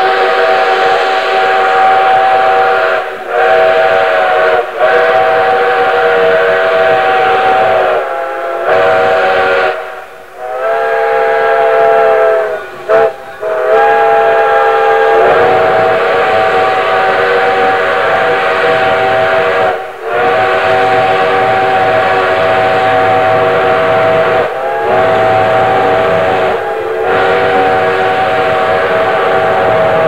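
Chime steam whistles on steam locomotives 3254 and 2317, blown in long held blasts. Several tones sound together as a chord, with short breaks between blasts, and the chord changes pitch about halfway through.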